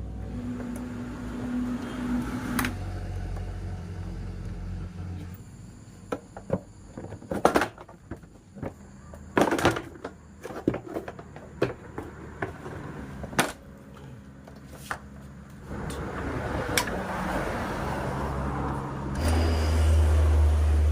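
Sharp metallic clinks and knocks of hand tools working on a scooter engine's parts, in a run of irregular strikes through the middle. A steady low hum sits under the start and comes back louder near the end.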